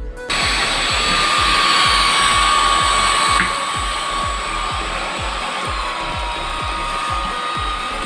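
Forbes Select Kordfree NXT cordless stick vacuum cleaner switching on about a third of a second in and running with a steady high whine and rush of air as its floor brush sucks spilled flour and debris off a tiled floor. The sound steps down slightly with a click at about three and a half seconds.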